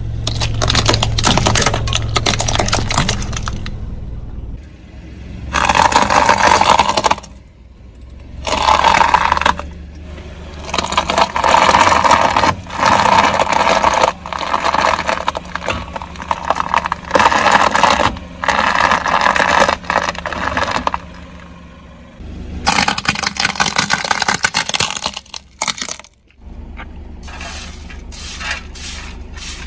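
A car tyre rolling slowly over objects and crushing them: repeated bursts of crunching and crackling, each lasting one to a few seconds, with shorter, quicker bursts near the end. A steady low car-engine hum runs beneath.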